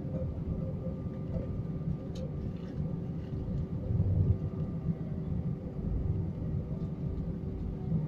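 Airbus A319 cabin sound while taxiing: a steady low rumble from the wheels and airframe, with the engines' constant hum on top, briefly louder about four seconds in.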